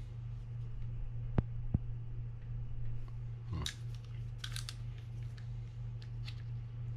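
A thin metal tool clicks and scrapes against a Penn Spinfisher 5500SS spinning reel as it is worked at a stuck part. Two sharp clicks come about a second and a half in, and a few brief scrapes follow, over a steady low hum.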